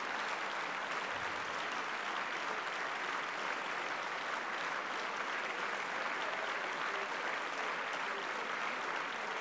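Dense, steady applause from a large group of people clapping together.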